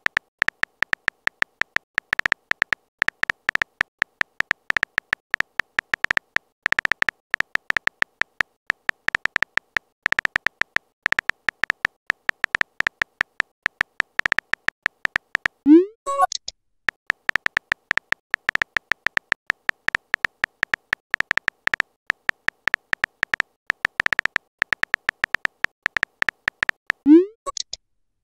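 Texting-app typing sound effect: a rapid run of short, high electronic key blips, one per typed character. It is broken twice, about 16 s and 27 s in, by a quick rising whoosh as a message is sent.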